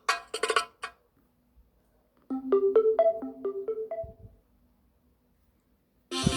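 Nokia 3500c mobile phone ringtones. The tapping end of one percussive tone gives way to a short marimba-like ringtone of about ten quick notes, lasting about two seconds. Near the end a busy electronic dance-style ringtone begins.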